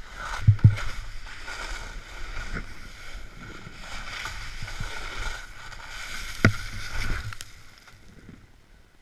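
Snowboard sliding and scraping over snow, with a few sharp knocks and thumps. The sliding dies away near the end as the board comes to rest in deep snow.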